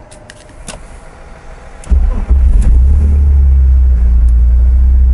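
A few light clicks, then about two seconds in the 2001 BMW 330Ci's 3.0-litre straight-six starts and settles into a steady low idle. It runs through a new stainless long-tube header and a 3-inch Magnaflow exhaust, not too loud.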